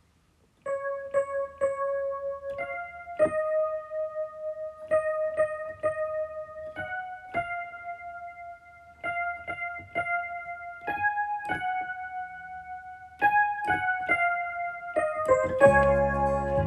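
Instrumental music: a keyboard plays a slow melody one note at a time, with some notes struck several times in quick succession. Near the end a fuller accompaniment with bass comes in.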